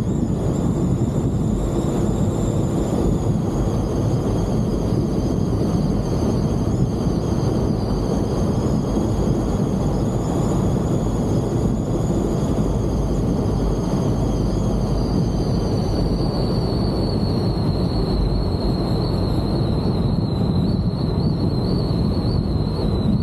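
Steady rumble of wind and road noise at a camera held above the roof of a moving off-road vehicle, with a faint high whistle that drifts slightly lower about two-thirds of the way through.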